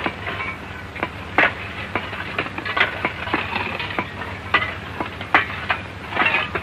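Steady hiss and hum of an old film soundtrack, with a handful of sharp knocks and clicks at irregular moments.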